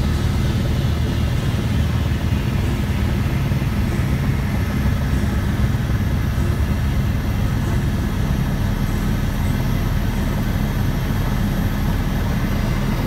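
Helicopter rotor and engine noise heard from inside the cabin: a loud, steady, low drone. A high whine slides down in pitch over the first few seconds.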